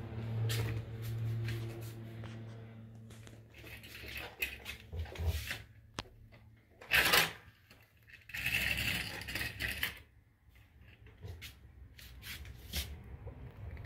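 Curtain fabric rustling and curtain hooks clicking on the rail as a baby red squirrel scrambles and swings along the curtains, in irregular bursts with scattered clicks, loudest about seven seconds in and again for a second or two after that.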